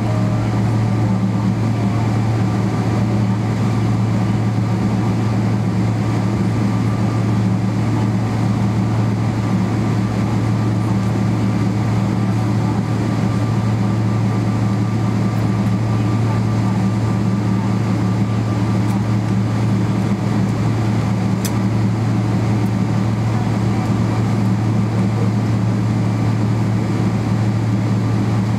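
Steady cabin drone of a Boeing 777-300ER taxiing at low speed with its GE90-115B engines at idle: a low hum with a faint steady whine above it.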